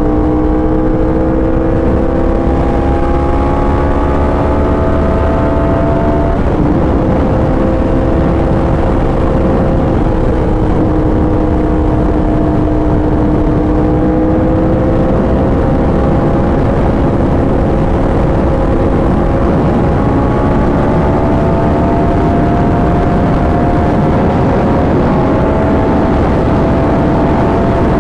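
2019 Yamaha R1's crossplane inline-four running through an SC Project exhaust at a steady cruise, its note slowly climbing, with a shift about six and a half seconds in. Heavy wind rush on the microphone underneath.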